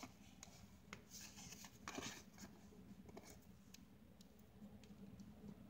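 Faint handling noise of fingers working a small plastic Figma action figure: light plastic clicks and taps as a part is worked toward a peg on its back, with a brief rustle about two seconds in.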